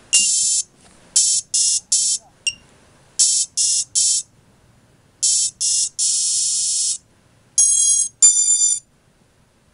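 Electronic beeps from an FPV racing quadcopter powered up on the ground: a long beep, then two groups of three short shrill beeps, two more short beeps and a second long one, and near the end two beeps in clearer, musical tones, as at power-up or arming.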